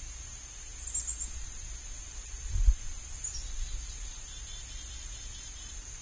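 Steady high-pitched insect drone with short, high bird chirps about a second in and again a little after three seconds, followed by a faint quick series of bird chips. A single low thump comes about two and a half seconds in.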